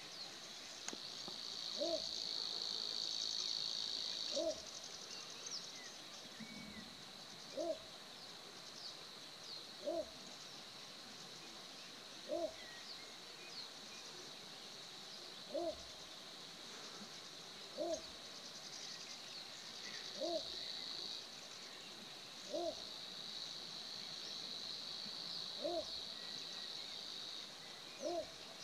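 Male little bittern giving its deep, short barking call, repeated evenly about every two and a half seconds, with a steady high insect chirring behind it.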